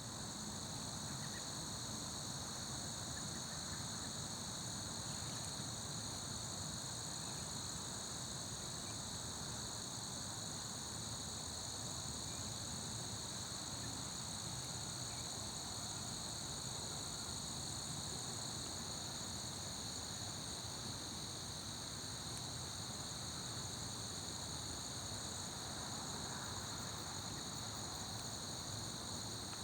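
Steady, unbroken chorus of insects, a high-pitched cricket-like drone in several bands, over a low steady background rumble.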